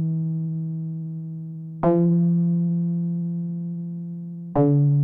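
Synthesizer keyboard notes, each struck sharply and left to fade slowly. One is dying away at the start, a new one is struck about two seconds in, and another near the end.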